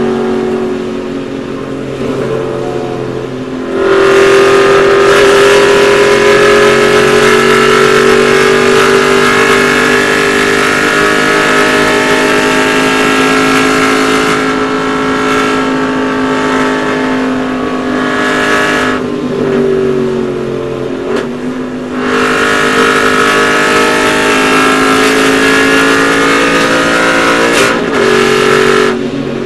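Aston Martin Vantage GT4's V8 engine heard inside the race car's cabin at full throttle at high speed, its note climbing slowly as the car pulls in a high gear. It is softer for the first few seconds and louder from about four seconds in. It drops back briefly about two-thirds of the way through, then pulls again and eases off just before the end.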